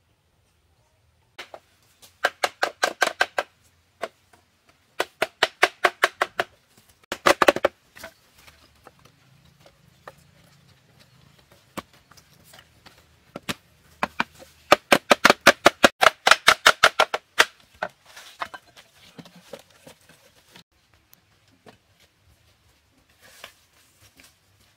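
Quick runs of sharp wooden knocks, about eight a second, from hand tools working a wooden stool frame. They come in four bursts, the longest lasting about two and a half seconds near the middle.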